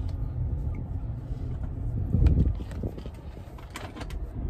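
A vehicle engine running with a steady low rumble, swelling louder for a moment a little over two seconds in, with a few short clicks near the end.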